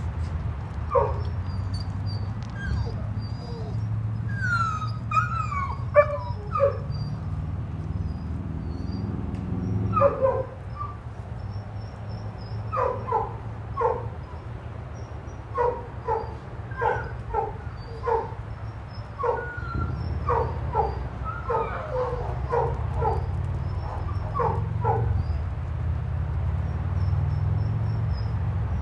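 Several dogs barking in short, sharp yips, with a quick run of them, one or two a second, in the second half. A few seconds in there are whines that rise and fall in pitch.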